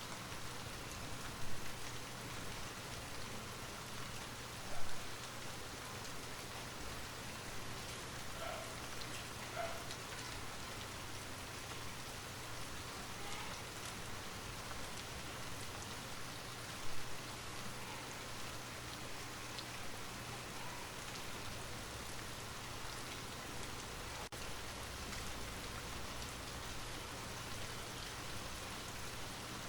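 Light rain falling steadily, an even hiss of many small drops, with a few louder individual drop hits now and then. A faint steady low hum runs underneath.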